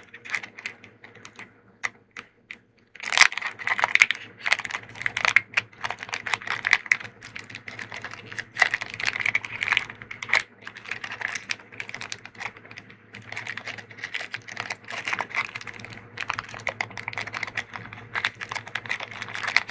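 Crackling and rustling of a foil Pokémon booster pack wrapper being worked open by hand to free cards stuck inside. It is quiet for the first few seconds, then a near-continuous run of irregular crinkly clicks.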